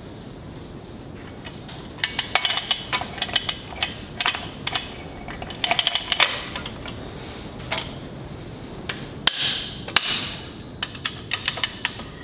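Ratchet wrench clicking in short quick runs as the wheel-bearing adjusting nut on a truck steer-axle hub is run down, starting about two seconds in, with two louder metallic knocks about three-quarters of the way through.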